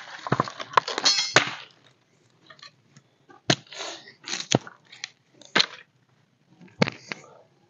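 Dry wood cracking and snapping at a campfire: a dense crackle and rustle in the first second and a half, then single sharp cracks about once a second.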